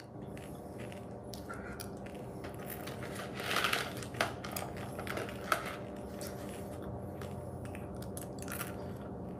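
A person eating close to the microphone: soft mouth and chewing sounds, with a brief crunch about three and a half seconds in and a couple of sharp clicks just after, over a steady low hum.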